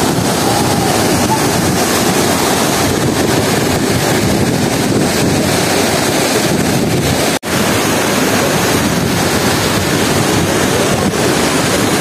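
Mantokha waterfall, a man-made fall of about 180 feet with its water coming down under pressure: a loud, steady rush of falling water that would drown out voices standing nearby. It breaks off for an instant about seven seconds in.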